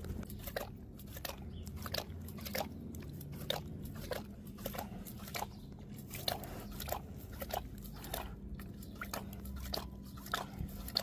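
A big cat lapping water, with short wet clicks and splashes coming about twice a second in an uneven rhythm.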